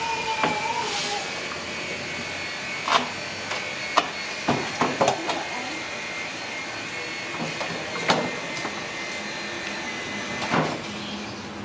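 A baby macaque being washed in a metal basin of soapy water: the water sloshes and splashes in short sharp bursts, several times, over a steady hiss. A thin, wavering cry from the baby macaque trails off about a second in.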